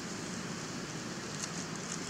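Steady outdoor background noise: a low rumble under an even high hiss, with a few faint ticks near the end.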